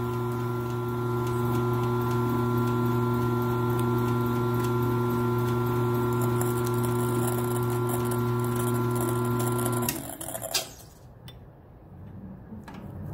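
Milling machine's electric motor running with the chuck and masonry bit spinning free, not yet cutting: a steady hum. It is switched off about ten seconds in and the hum stops, followed by a couple of faint clicks.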